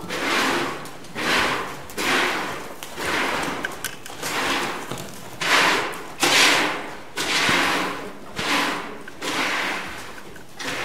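A ridden horse moving briskly round an indoor sand arena: a rhythmic noisy whoosh a little more than once a second, in time with its stride, loudest as it passes close about six seconds in.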